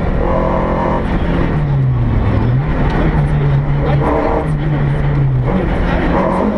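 Volkswagen Golf Mk1 GTI rally car's four-cylinder engine heard from inside the cabin at rally pace. Its pitch drops about one and a half seconds in, climbs again and holds, then rises once more near the end.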